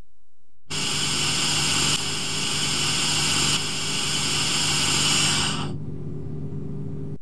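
Pure oxygen hissing steadily through an Airbus A330/A340 cockpit crew oxygen mask after its emergency pressure knob is turned: an overpressure, continuous flow. The hiss starts abruptly under a second in and cuts off about five seconds later, leaving a low steady hum.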